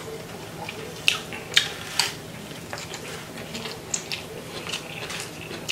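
Eating sounds: a metal fork picking at food in a styrofoam takeout container, with chewing, giving a handful of sharp little clicks over a quiet background.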